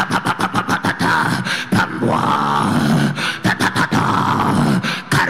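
A man praying aloud in tongues (glossolalia): a loud, unbroken stream of rapid syllables.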